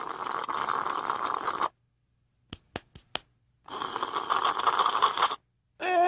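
Slurping through a drinking straw: a long noisy sucking sound, then four short clicks, then a second long slurp. At the very end a voice starts a falling exclamation.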